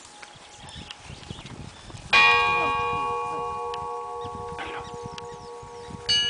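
Russian Orthodox church bells ringing: one bell is struck about two seconds in and rings on, slowly fading, and a second bell with a different tone is struck near the end.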